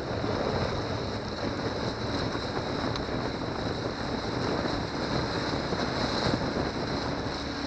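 Wind rushing over the microphone and the hull slapping and spraying through choppy water as a small runabout cruises at speed, its Johnson 90 hp outboard running steadily underneath.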